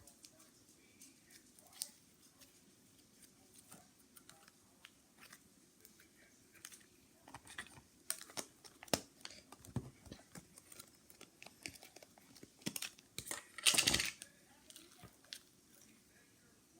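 Slime being squished and stretched by hand: scattered sticky clicks and pops that grow busier about seven seconds in, with the loudest crackly squelch about fourteen seconds in.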